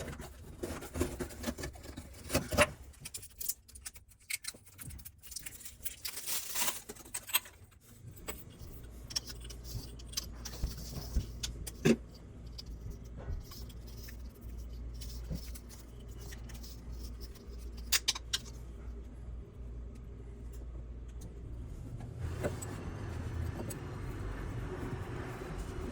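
Light metallic clinks and clicks of shower head parts and tools being handled during installation. A steady low rumble sets in about eight seconds in, and a broader noise rises near the end.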